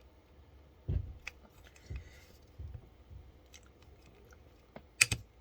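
Small screwdriver working a very tight M.2 screw out of a motherboard's drive standoff, so tight that the standoff comes out with it: scattered low knocks and scraping ticks, then two sharp clicks about five seconds in.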